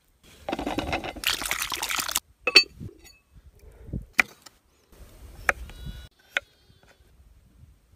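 Water sloshing for about two seconds as potatoes are washed. Then come a few separate sharp knocks and clicks from potato preparation: a potato going into a pot of water, and a knife cutting potatoes on a wooden chopping board.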